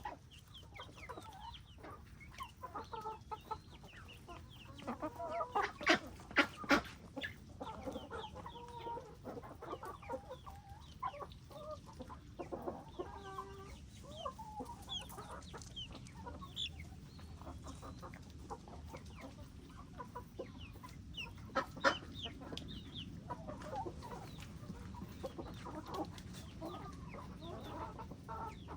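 Flock of chickens clucking and calling, many short calls overlapping, with a few louder calls about six seconds in and again past twenty seconds.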